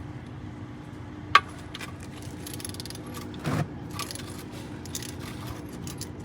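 Metal clinks and clicks of a wrench working a car's oil drain plug loose, with one sharp clink about a second and a half in, over a steady low hum.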